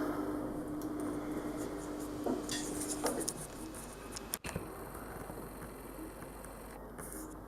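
Steady background room noise with a few light clicks about two to three seconds in.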